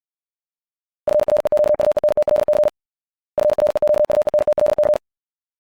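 Morse code sent at 70 words per minute: a single tone of about 600 Hz keyed in very fast dits and dahs, in two bursts of about a second and a half each with a short pause between.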